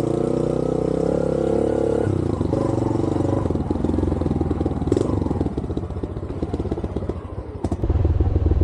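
Motorcycle engine running under way. Its note holds steady for about two seconds, then drops to a lower, rougher sound, which gets louder near the end.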